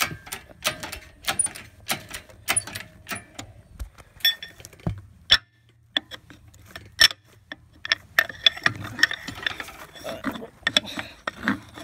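Hand ratchet clicking in quick, even strokes, about three a second, as a bolt is worked loose on an engine, with a short break about halfway.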